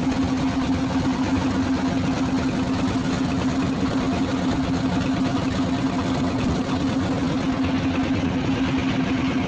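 A small wooden fishing boat's engine running steadily at cruising speed, one constant droning tone, with water rushing past the hull.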